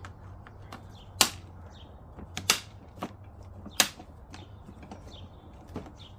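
Hard plastic parts of a ride-on toy car clicking and tapping as they are handled and fitted: a few sharp louder clicks spread through, with fainter ticks between.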